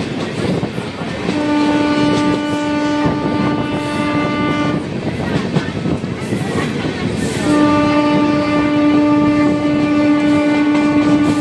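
A train's locomotive horn sounds two long, steady blasts of about three and a half seconds each, the second starting a little past halfway. Under the horn runs the continuous rumble and clatter of the express train's coaches on the rails.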